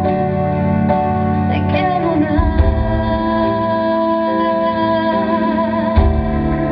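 Amplified live pop music: a woman singing long held notes into a microphone over instrumental accompaniment, the bass changing chord about two and a half seconds in and again near the end.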